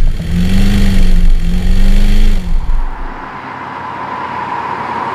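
1968 Mercedes-Benz 300SEL 6.3's 6.3-litre V8 accelerating hard through its exhaust: the engine note climbs, drops briefly about a second in as it shifts up, and climbs again. After about three seconds it gives way to a quieter steady rush of the car on the road with a faint whine.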